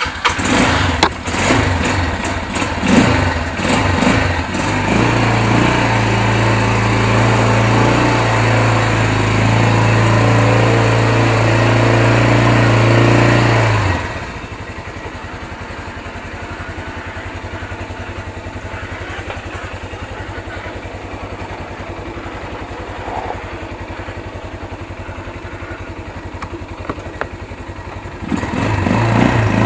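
Quad bike (ATV) engine running: uneven for the first few seconds, then a steady drone. About halfway through it drops to a quieter, lower note, and it rises again near the end.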